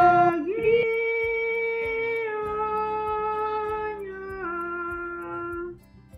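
A woman's voice singing a hymn, holding one long note that drops to a lower held note about four seconds in, then stops near the end.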